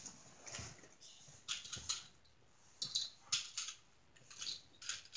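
Small toy vehicles being handled on a leather sofa: irregular clusters of soft clicks, taps and scrapes.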